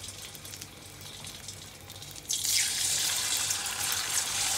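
Hot oil in a steel pan hissing lightly, then from about two seconds in a sudden loud, steady sizzle as batter-coated banana pieces go in to deep-fry.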